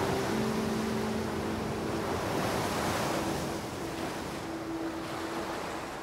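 Sea waves washing on a rocky shore, a steady surf rush that eases somewhat in the second half, with some wind.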